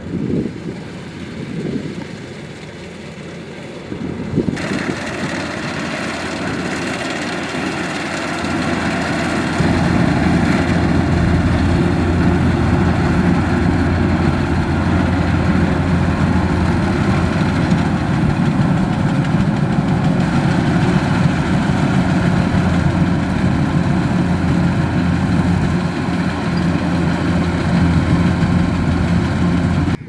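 Kubota DC-105X rice combine harvester running as it cuts rice: a steady engine sound that grows louder and fuller a few seconds in, and again about ten seconds in.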